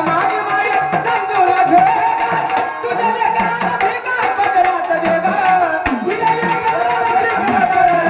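Gondhal folk music: sambal drums played in quick, dense strokes, the low drum bending in pitch, under a held, wavering melody line.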